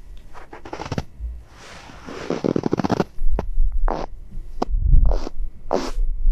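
Boots crunching into fresh powder snow: one long, crackling crunch as the snow packs down, then several short crunches. A low rumble runs underneath from about three seconds in.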